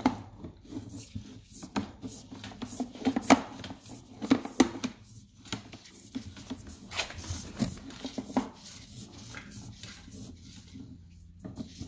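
Irregular knocks, clicks and scrapes of hands working at a basement sewer backwater valve, opening up its access.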